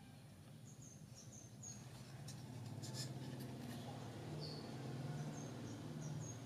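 Faint scratching and light clicks from an amplifier circuit board being handled in the fingers, over a low steady hum, with several short high bird chirps.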